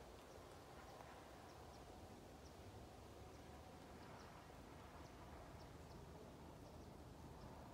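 Near silence: faint outdoor ambience with many faint, short high chirps scattered irregularly throughout.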